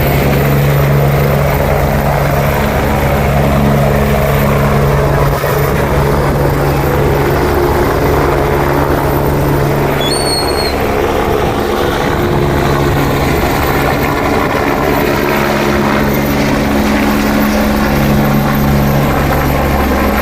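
Helicopter running close by: a loud, steady rotor and turbine noise with a low pulsing hum.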